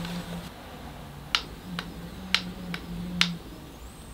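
GVM GR-120QD motorized belt-drive camera slider running with a DSLR on its carriage: a faint low motor hum comes and goes. Five sharp clicks fall about half a second apart, starting just over a second in.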